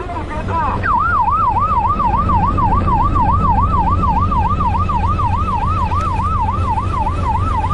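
Patrol boat's electronic siren in a fast warble, rising and falling about four times a second, signalling the vessel to stop; it starts about a second in. Under it runs the steady low rumble of the boat's engine and wind.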